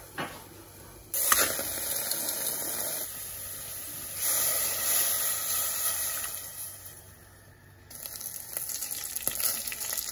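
Tap water running into a steel pot of raw beef pieces: it starts suddenly about a second in and gets louder around four seconds. After a lull near eight seconds, a crackling sizzle of beef cooking in the pot.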